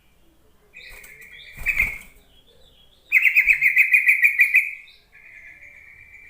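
Yellow-vented bulbul calling: a churring note about a second in, then a loud, fast, bubbling chatter in the middle, then a softer drawn-out note near the end. A brief rustle sounds just before the first note ends.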